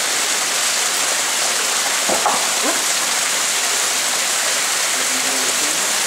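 Small waterfall spattering down a rock face: a steady, even rush of falling water. A brief faint voice is heard about two seconds in.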